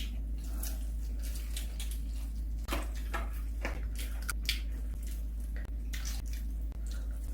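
Close-up chewing of fried chicken, with irregular wet smacking and short clicking mouth sounds over a steady low hum.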